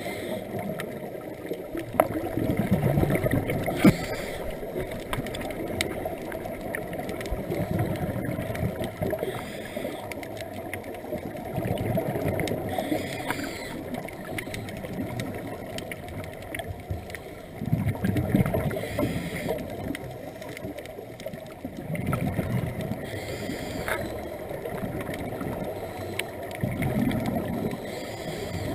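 Scuba diver's regulator breathing heard underwater: a rush of exhaled bubbles about every four to five seconds, over a steady underwater hiss.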